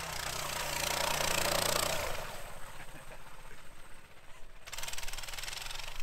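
Pit bike's small engine running as the bike churns through deep snow. It is loudest in the first two seconds, with a rushing hiss over the engine, then drops to a fainter, more distant run.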